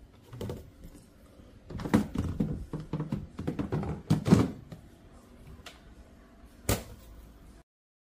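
Plastic knocks, clunks and rattles from the lid and water tanks of a Xiaomi Robot Vacuum X20+ base station being handled, with a cluster of knocks in the middle and one sharp click near the end. The sound cuts off suddenly shortly before the end.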